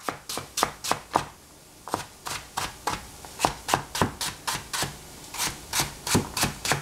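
Cleaver chopping sliced raw potato into strips on a plastic cutting board: a steady run of sharp knife strikes, about three to four a second, with a brief pause a little over a second in.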